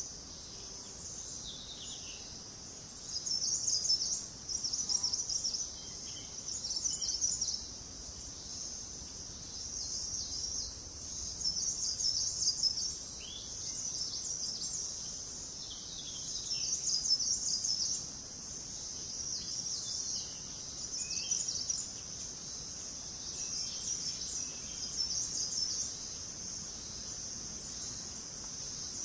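Forest insects singing in a continuous high-pitched chorus that swells in repeated bursts of about a second each. A few short, faint falling bird notes come through underneath.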